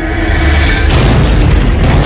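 Film-trailer sound design: a loud, deep boom and rumble over music, swelling up about half a second in.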